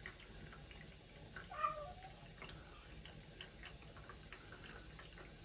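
A single short vocal call with a bending pitch about one and a half seconds in, over faint room tone with a few soft clicks.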